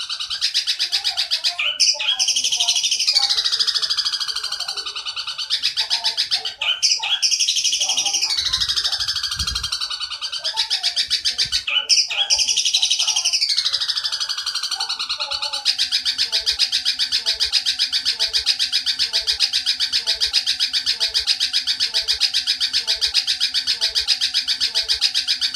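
Looped bird-song training recording of the long, rapid chatter of a Eurasian tree sparrow ('burung gereja nyerecet panjang'), used as fill-in material for teaching long-tailed shrikes. For the first two-thirds the chatter is broken by falling sweeps about every five seconds. After that it runs on as one unbroken high chatter.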